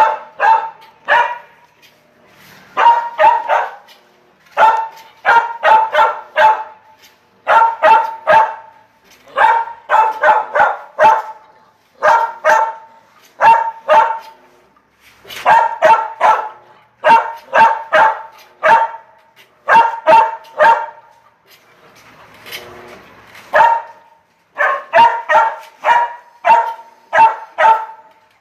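Female dog barking over and over, in quick runs of three to five barks every couple of seconds. About three-quarters of the way through, the barking breaks off briefly and a softer rushing noise is heard, then the barking resumes.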